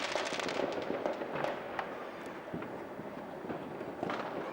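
Fireworks display: a dense crackle of many small pops dies away over the first couple of seconds, with scattered pops after it, and a fresh burst of crackling starts near the end.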